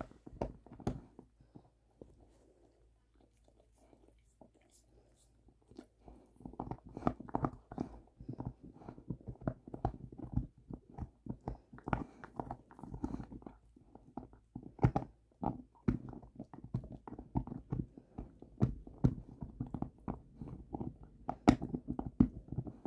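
Bernese mountain dog gnawing a bone: irregular crunches and clicks of teeth on bone. The chewing is sparse at first and turns dense and steady about six seconds in.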